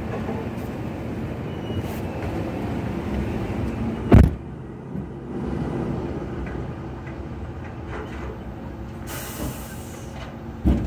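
Heavy machinery engine running with a steady drone, broken by two sharp, loud bangs about four seconds in and near the end.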